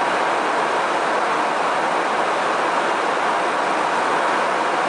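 Steady rushing roar of airflow and jet engines of a tanker aircraft in flight, heard from the boom operator's station during air-to-air refuelling.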